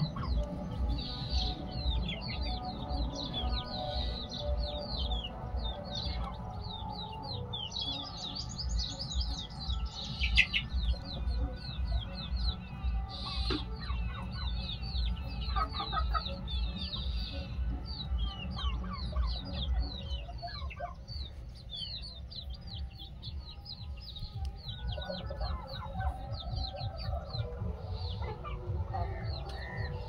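A flock of free-range desi chickens clucking amid constant rapid, high chirping, over a steady low rumble.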